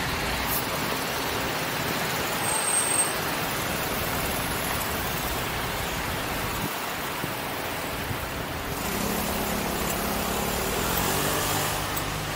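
Steady city road traffic noise, with one vehicle's engine drone standing out from about nine seconds in.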